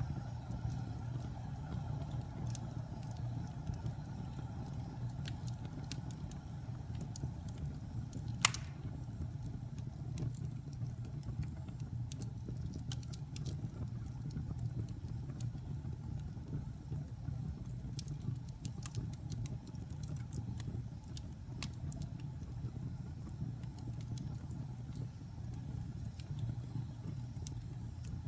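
Wood fire burning in a fireplace: a low steady rumble with scattered crackles, and one loud pop about eight and a half seconds in.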